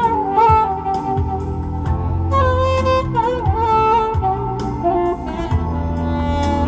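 Alto saxophone playing a smooth melody over a backing track with a bass line and a steady drum beat.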